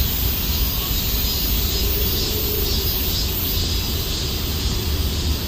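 Steady low rumble and hiss of outdoor background noise, with no distinct events.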